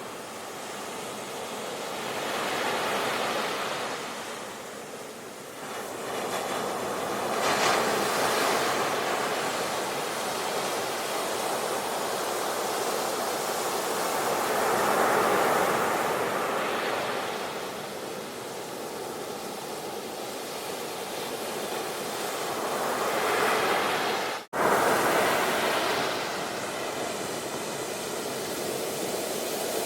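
Ocean waves washing onto a shore, a steady rushing that swells and eases every several seconds. The sound drops out for an instant about three-quarters of the way through, then returns louder.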